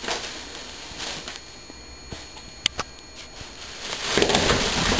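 Thin plastic shopping bag crinkling and rustling as a cat moves about tangled inside it: short bursts at first, two sharp clicks a little past halfway, then loud continuous rustling over the last second.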